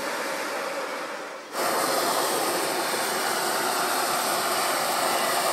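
Hot-air balloon propane burner firing with a steady roaring hiss. It sags briefly about a second and a half in, then fires again louder.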